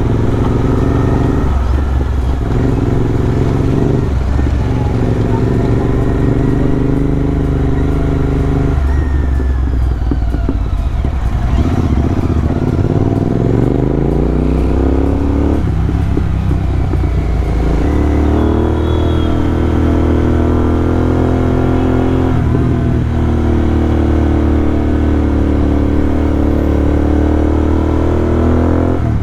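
Royal Enfield GT650's 648 cc parallel-twin engine running on the road, its note climbing as the bike accelerates and dropping back at each gear change, then holding steady at speed.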